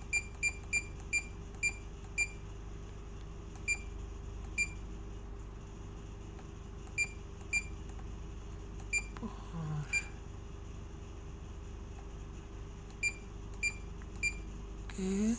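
Key beeps from a Furuno GP-39 GPS navigator as its cursor pad is pressed to step through letters for a waypoint name. There are about fifteen short, sharp beeps of one pitch, several in quick succession at first, then spaced a second or more apart. A steady low hum runs underneath.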